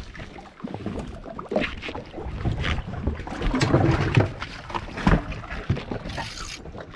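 Deck sounds of a small fishing boat at sea: irregular knocks and thuds over a steady wash of noise, the strongest thud about five seconds in.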